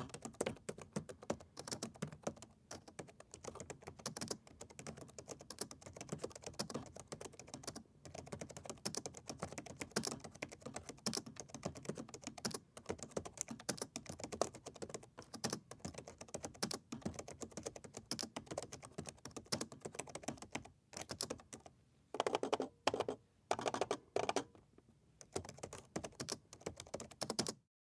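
Fast typing on a laptop keyboard: a dense, continuous run of light keystroke clicks. Between about 22 and 25 seconds a few louder, heavier clusters of key presses stand out, and the typing cuts off suddenly near the end.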